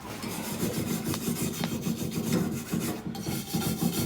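Wire brush scrubbing a cast iron pan in rapid back-and-forth strokes, a continuous scratchy rasping of bristles on iron.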